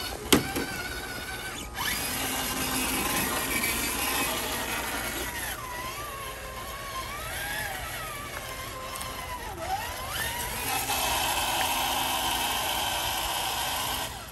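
Traxxas TRX-4 RC crawler's electric motor and geared drivetrain whining as it is driven, the pitch rising and falling with the throttle. There is one sharp click just after the start.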